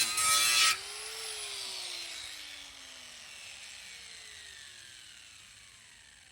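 Electric grinder grinding sheet steel, then switched off less than a second in; its motor whine falls steadily in pitch and fades as the disc spins down.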